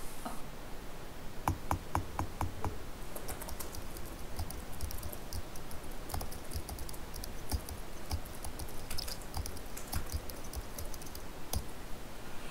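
Typing on an Acer laptop keyboard: a few separate keystrokes about a second and a half in, then fast, continuous typing that stops shortly before the end.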